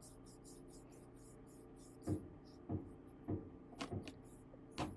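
Wide flat brush swishing thinned acrylic paint across a canvas in quick back-and-forth strokes, a stroke about every half second from about two seconds in.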